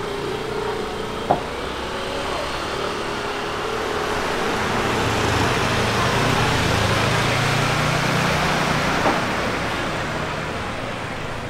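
A motor vehicle passing by on the street: engine hum and road noise grow to a peak a little past the middle and then fade. There is a single sharp click about a second in.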